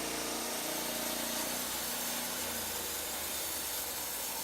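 Norwood LumberMate LM29 portable band sawmill running, its engine-driven band blade cutting through a log; the engine note changes about two seconds in.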